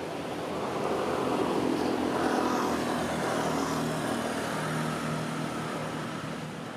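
A motor vehicle passing on a nearby road: a steady engine drone that swells over the first couple of seconds and then slowly fades.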